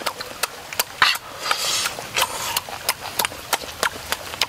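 Close-up wet eating sounds of a person biting and chewing soft durian flesh: rapid lip smacks and mouth clicks, with a short sucking slurp about a second in.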